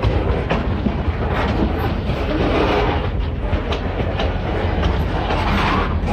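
Steel gondola freight cars of a Norfolk Southern train rolling past close by: a steady low rumble, with the wheels clacking at uneven intervals over the rails at the grade crossing.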